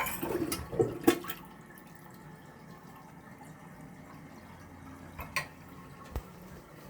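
Contrac toilet flushing with its siphon jet plugged: a sudden rush of water with a couple of sharp clunks for about a second and a half, then only a faint steady trickle.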